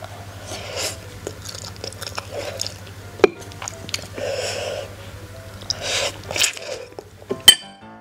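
Close-miked chewing and mouth sounds of a person eating a mouthful of fried instant noodles, coming in short bursts. A few sharp clicks of wooden utensils on a ceramic plate, the loudest near the end.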